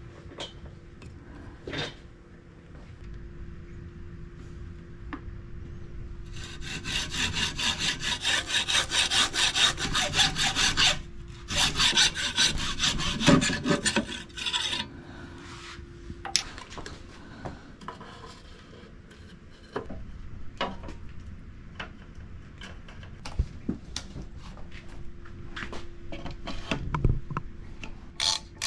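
Hand saw cutting through a bicycle's carbon fork steerer tube: fast, even back-and-forth strokes for about eight seconds, with a short break partway through, then lighter scraping and a few clicks.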